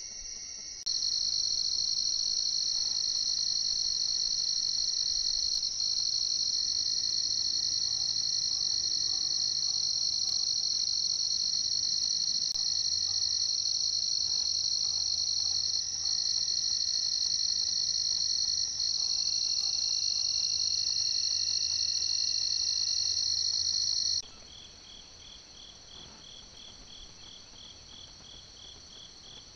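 Loud, steady, high-pitched chorus of night insects such as crickets. About 24 seconds in, it changes abruptly to a quieter chorus with a rapid pulsing call repeating several times a second.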